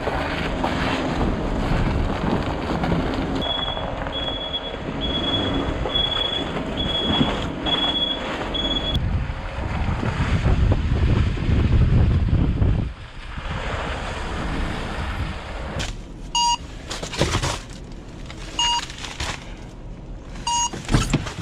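Delivery van driving through snow, with a steady low rumble and wind noise on the microphone. A high chime beeps about seven times at an even pace in the first half. After the rumble drops away, three short beeps sound near the end.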